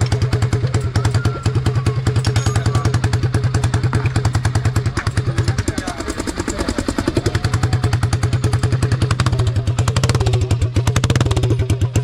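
Motorcycle engine running at idle with a fast, even exhaust beat. It falters briefly about six seconds in, then picks back up.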